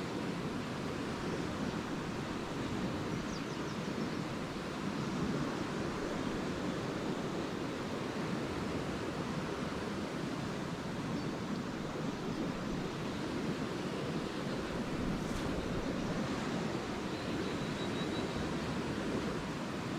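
Lake Erie waves washing steadily onto the beach, surging and easing in slow swells, with a few faint high bird chirps now and then.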